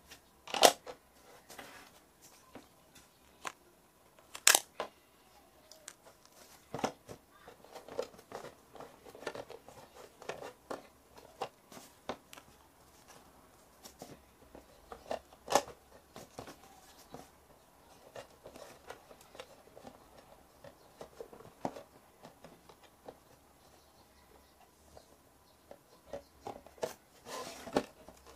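Hard plastic parts of a Play-Doh toy stove playset being handled: irregular clicks and knocks as pieces are opened, set down and pressed, with softer handling noise between. A few knocks stand out, and they bunch together near the end.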